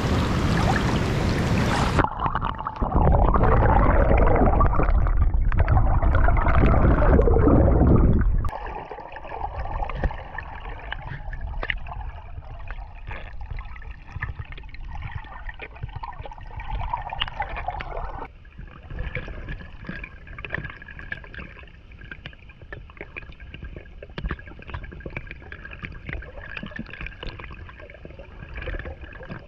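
Creek water rushing and splashing, in several cut-together stretches: a loud even rush for the first several seconds, then quieter gurgling and splashing with scattered knocks.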